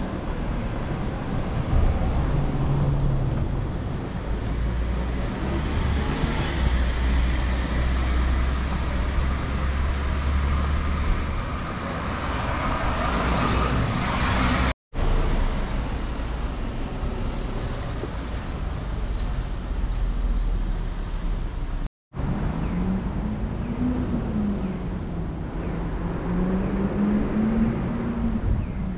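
Street ambience of road traffic: cars and a van passing with a low engine rumble. The sound drops out briefly twice, and a low wavering hum comes in over the last few seconds.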